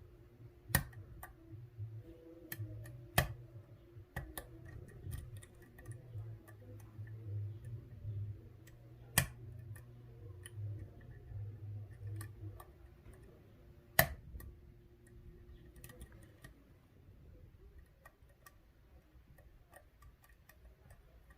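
Lock pick working the pins of a Medeco biaxial euro cylinder under tension: scattered light metallic clicks and ticks, a few sharper ones, over a faint low hum.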